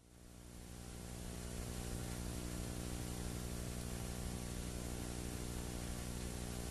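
Steady electrical mains hum with hiss in the recording's audio chain, fading in over the first second or two.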